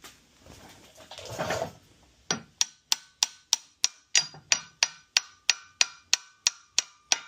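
Hammer tapping a new LSA supercharger isolator into place in the snout: a steady run of about sixteen sharp strikes, roughly three a second, each with a metallic ring. A short scraping sound comes just before the strikes.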